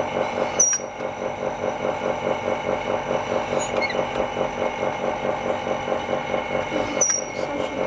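A small motor-driven workshop machine, such as the vacuum pump of an LCD laminating machine, running steadily with a fast, even pulse. Two brief high squeaks come about half a second in and again near the end.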